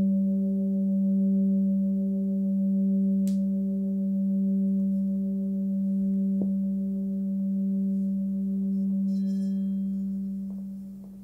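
Nepalese singing bowl tuned to G (194 Hz) ringing on after being played: a steady low hum with fainter higher overtones that swell and fade in a slow wah-wah beat. Near the end the higher overtones die away, and then the hum cuts off.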